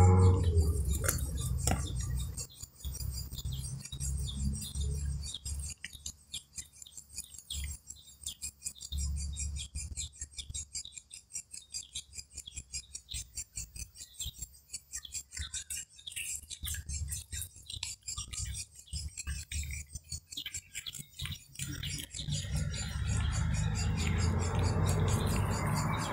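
A kitten chewing fish: a run of quick, irregular wet clicks and smacks as it eats.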